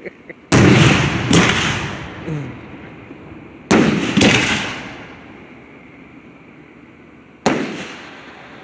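Aerial fireworks shells bursting overhead: five booms, two quick pairs and then a single near the end, each followed by a long fading echo.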